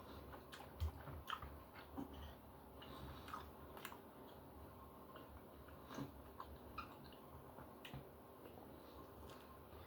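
Faint close-up chewing of steak, with scattered small clicks and taps every second or so.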